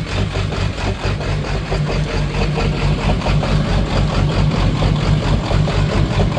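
Ford 7.3-litre V8 diesel idling warm with an uneven, missing beat. The owner takes the miss for a bad injector not spraying right at idle.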